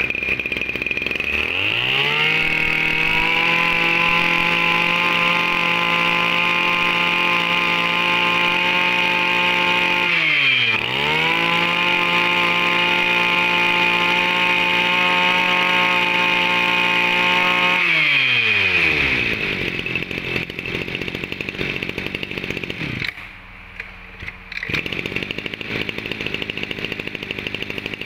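Echo 230 brush cutter's 23 cc two-stroke engine revved from idle to full throttle and held there, let off briefly about ten seconds in and opened up again, then dropped back to an uneven idle about two-thirds of the way through. A steady high whine sits on top of the engine throughout.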